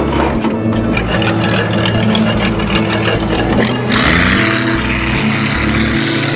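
Fishing boat's engine running steadily at sea. From about four seconds in, a loud rush of water joins it.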